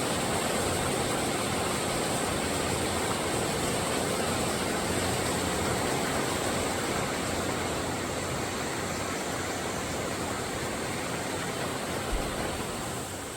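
River water flowing, a steady rushing hiss, with one brief low bump near the end.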